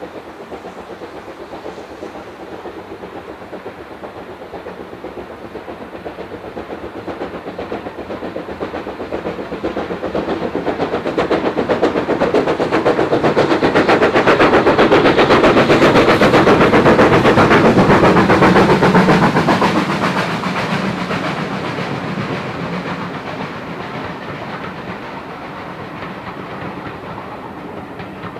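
BR Standard Class 4 4-6-0 steam locomotive No. 75014 running at speed with rapid exhaust beats, growing louder as it approaches. The train of coaches rolls past, loudest about halfway through, then fades as it goes away.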